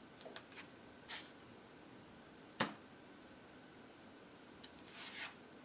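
Magic: The Gathering cards being picked up and set down on a cloth playmat over a wooden table: light slides and rustles, with one sharp tap about two and a half seconds in and a short scrape near the end.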